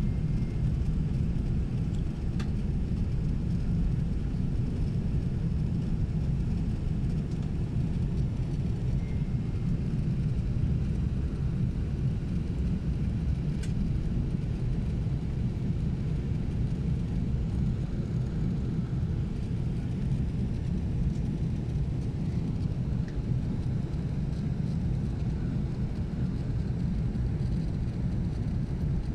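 Steady low rumble of cabin noise inside an Airbus A380 taxiing after landing, with a couple of faint clicks, one about two seconds in and one near the middle.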